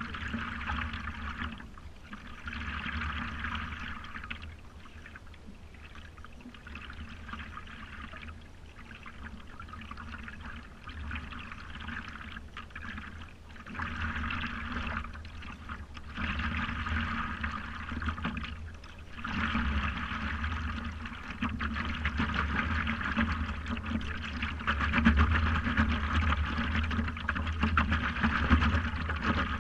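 Water gurgling and lapping against the nose of a stand-up paddleboard as it moves along, swelling and fading every few seconds and growing louder toward the end.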